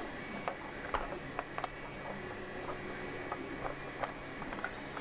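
Scattered light clicks and knocks, irregular, a few a second, as a large 2 kg filament spool is handled and pushed against a laser-cut spool holder that is too small for it.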